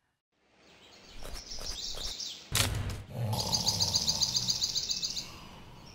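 Cartoon sound effects: birds chirping, with a sharp thump about two and a half seconds in as a body flops back onto a bed, then a fast, even bird trill for about two seconds.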